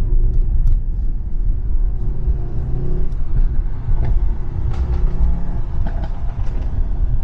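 Car on the move: a steady low engine and road rumble with a faint engine note rising and falling slightly, and a few sharp clicks or pops scattered through it.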